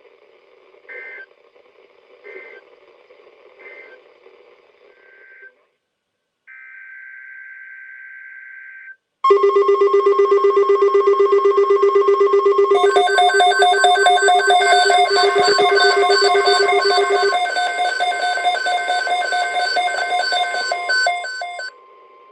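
Emergency Alert System sequence between two alerts. First come short bursts of screeching digital data tones, then a longer burst of the same two tones. About nine seconds in, a loud electronic attention alert starts: a steady tone, joined a few seconds later by a rapid pulsing ringing warble that cuts off abruptly near the end.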